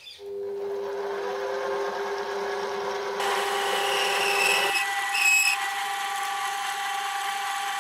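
Mini metal lathe switched on, its motor and spindle starting up and running steadily. About three seconds in, the boring tool starts cutting in the pulley bore, taking a light cut of a couple of thou, and gives two short, high squeals.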